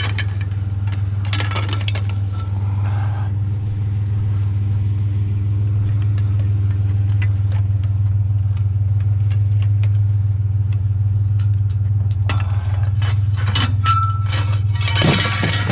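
A pickup truck's engine idling steadily, with metal rods, rails and tubes clanking and rattling as they are gathered up about a second in and loaded onto the truck's caged bed near the end.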